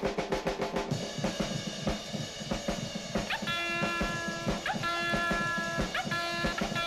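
Music with a steady drum-kit beat; held notes come in about three and a half seconds in.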